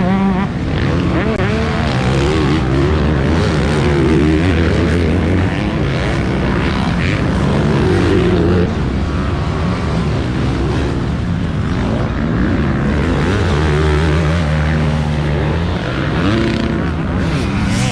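Several motocross bikes running around a dirt track, their engines revving up and down repeatedly as they accelerate and back off.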